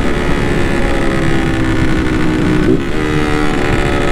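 Single-cylinder engine of a Honda CG 160 motorcycle under way through a loud, open-sounding modified muffler that sounds like little more than a bare pipe. The engine note steps up briefly about three seconds in, then slowly sinks.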